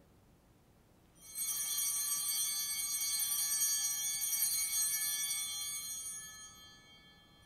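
Altar bells, a set of small sanctus bells, shaken and ringing for about five seconds, starting about a second in and dying away near the end. They are rung to mark the elevation of the chalice at the consecration.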